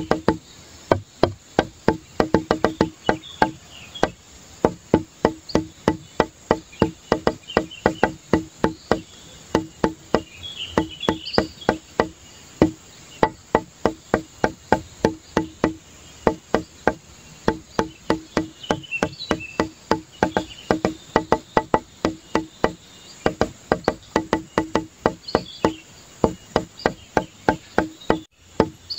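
Background music: a quick, steady clicking percussion beat over a held low note, with short chirping sounds above it.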